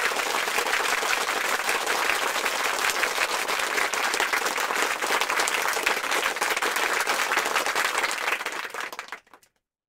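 Applause: many people clapping, steady and dense, fading out and stopping near the end.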